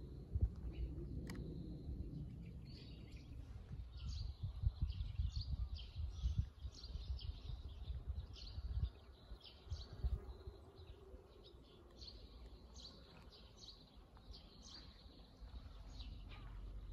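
Small birds chirping in many short, quick high calls, over a low rumble with scattered thuds.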